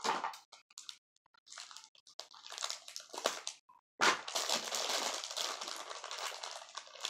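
Small plastic packets of slime ingredients crinkling and rustling as they are handled and sorted through, in irregular bursts that grow denser and more continuous in the second half.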